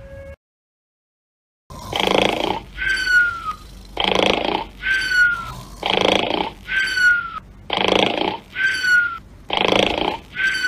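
Exaggerated cartoon-style snoring: a rasping snort followed by a high falling whistle, repeated five times about every two seconds after a second or so of silence.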